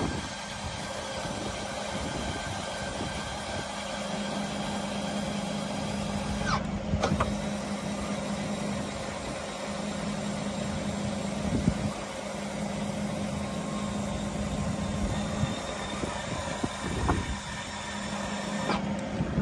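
Volkswagen Touareg's 5.0-litre V10 TDI diesel engine idling steadily, heard at the exhaust tailpipe, with a few brief knocks along the way.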